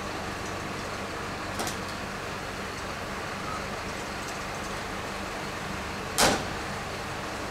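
Steady background traffic noise, with a faint click about a second and a half in and one short, sharp knock about six seconds in.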